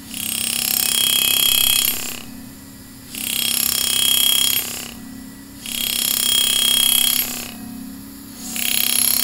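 Pneumatic hammer engraver buzzing in bursts of about two seconds, with a pause of about a second between, as it cuts a simple wheat-stem pattern into metal; a low hum fills the pauses.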